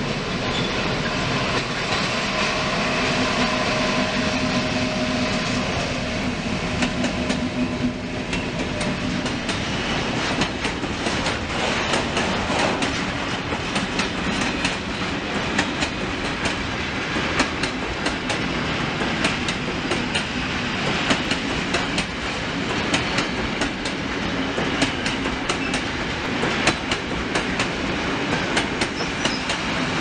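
A freight train of covered box wagons rolls past behind its locomotive. For the first eight seconds or so the locomotive gives a steady drone, then the wagon wheels clack over the rail joints again and again.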